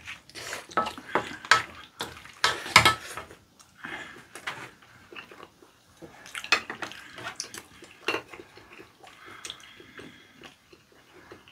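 Table eating sounds: a plastic spatula-spoon scraping and tapping in a non-stick frying pan and chopsticks clicking on dishes, in a quick run of short clicks and scrapes, busiest in the first half. Ramen noodles are slurped and chewed.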